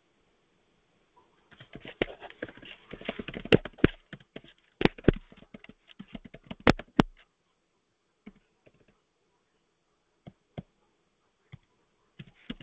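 Typing on a computer keyboard. A quick run of key clicks starts about a second and a half in and lasts several seconds, then a few single keystrokes follow, spaced well apart.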